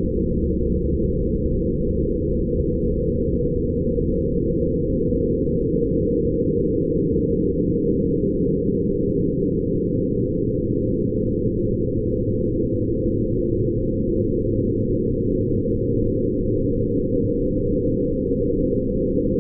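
Steady low electronic drone of many held tones layered together, with nothing high in it, made by turning photographs of light into sound with sound-editing software.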